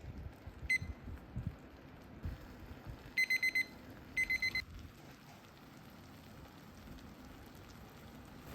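Electronic appliance or kitchen-timer beeps: one short beep, then two quick bursts of about four high beeps each, like a timer alarm going off.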